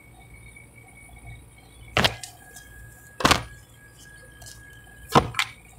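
Tarot cards handled at a table: three sharp taps as the cards strike the tabletop, about two seconds in, a little over a second later, and near the end.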